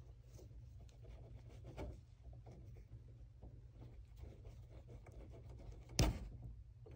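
Fingers working a brass piggyback spade connector apart on a wire terminal: faint scratching and small clicks over a low steady hum, then one sharp click about six seconds in as the connector comes free.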